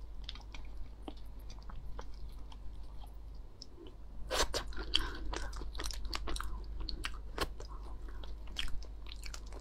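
Close-up eating sounds: raw slipper lobster shell being picked apart by hand in small clicks and cracks, and wet chewing of the raw meat. A few louder cracks come about four seconds in.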